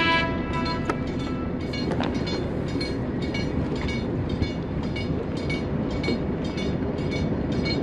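Warning bell of a bascule bridge's road traffic gate clanking in a rapid, even rhythm, signalling that road traffic is being stopped before the bridge opens, over a steady background rumble.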